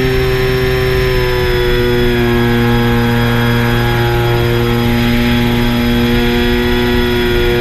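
3DR Solo quadcopter's motors and propellers whining steadily in flight. A stack of steady tones that eases slightly lower in pitch in the first second or so, then holds.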